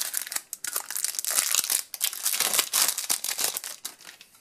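Crinkly foil wrapper of a trading-card booster pack rustling and crackling as it is opened and the cards are pulled out, dying away near the end.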